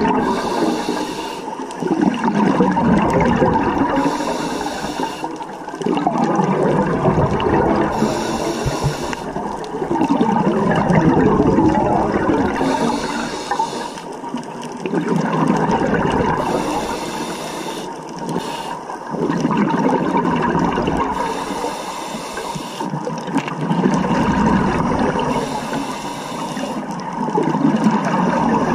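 Scuba diver breathing through a regulator underwater: a short hiss on each inhale, then a longer burst of rumbling, bubbling exhaust, repeating about every four seconds, some six or seven breaths in all.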